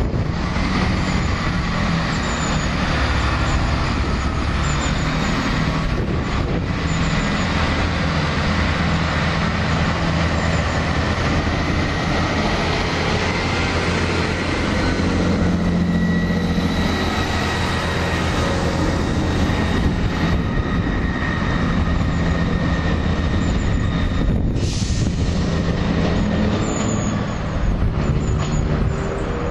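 Class 158 Super Sprinter diesel multiple unit's underfloor diesel engines working hard as the train pulls away, a steady loud drone with a faint high whine alongside.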